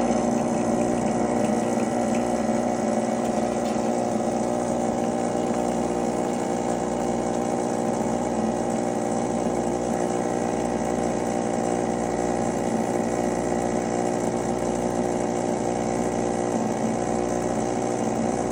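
Rancilio Silvia espresso machine's vibratory pump running steadily while pulling a timed espresso shot: a loud, even hum.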